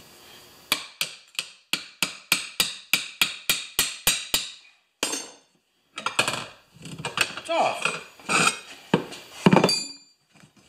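A quick, even series of about a dozen sharp metal knocks, roughly three a second, as a tire iron is worked against the rim of a small lawn tractor wheel to free the tire's bead. After a short pause come a few seconds of uneven scraping and rubbing as the tire is worked off the rim.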